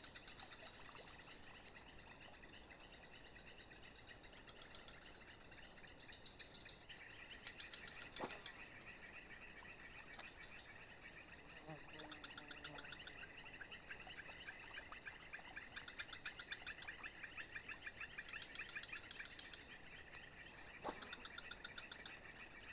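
Chorus of insects: a loud, steady, high-pitched drone, joined about a third of the way in by a lower, fast-pulsing trill. Two brief sharp clicks stand out, one about a third in and one near the end.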